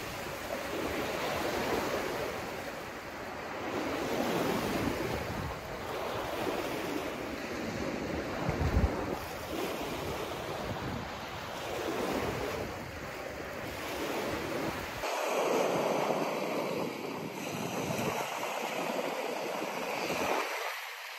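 Small waves washing onto a stony shore, rising and falling every few seconds, with wind on the microphone.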